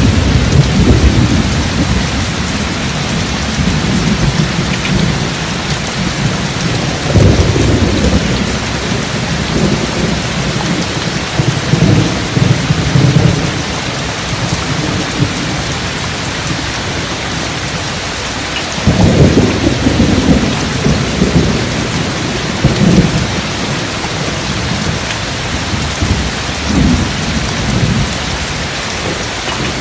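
Steady heavy rain with deep rolling thunder. A rumble runs at the start, another swells about seven seconds in, a long one about nineteen seconds in, and a shorter one near the end.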